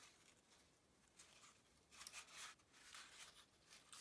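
Faint rubbing and rustling of cardstock being handled as the corners of a paper frame are pressed together, with a few soft brushes about two seconds in.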